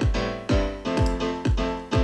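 Music made on a computer: electric piano chords over a steady pattern of deep, falling bass-drum hits, a little over two a second.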